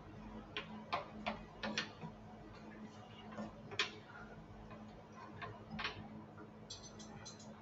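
Olive oil crackling and popping in a frying pan under a frying pie: scattered sharp pops at irregular intervals, with a quick cluster of light, high clicks near the end, over a steady low hum.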